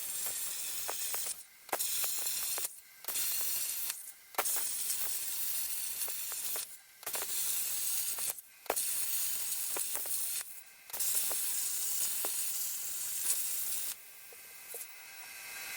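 Plasma cutter torch on a CNC table cutting sheet metal, a steady high-pitched hiss. It cuts out briefly about six times between cuts and stops near the end.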